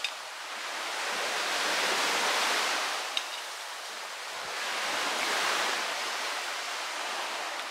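Sea waves washing ashore: a steady hiss that swells and falls back twice.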